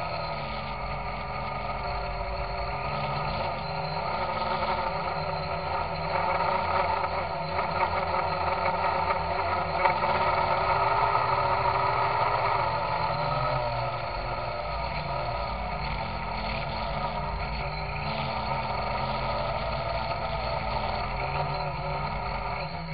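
Electrohub Spider X quadcopter's brushless motors and propellers in flight, heard through its own onboard camera: a continuous multi-tone drone whose pitch wavers with the throttle, getting louder about a quarter of the way in and easing after the middle. The motors run noisily, which the owner takes for bad bearings out of the box.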